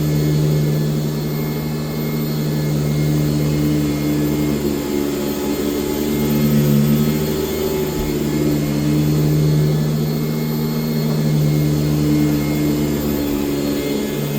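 1996 Sanitaire S663 upright vacuum cleaner running steadily while vacuuming. Its motor hum wavers slightly in pitch a few times as it is pushed along.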